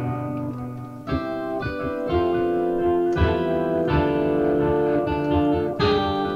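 Yamaha PSS-A50 mini keyboard played through an organ-effect pedal: held chords that change roughly once a second.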